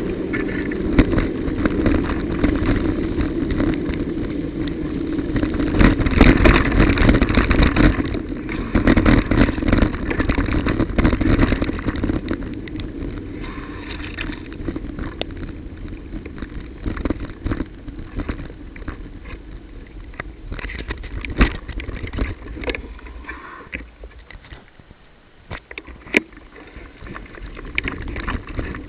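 Bicycle riding over a wet, broken road surface: steady tyre and wet-road noise with many knocks and rattles from the bike over bumps and holes. It is louder for the first dozen seconds, then quieter with scattered knocks.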